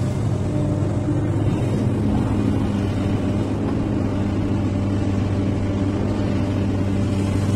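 XCMG XE215C hydraulic excavator's diesel engine running steadily with its hydraulics working while the machine swings its boom and upper structure around.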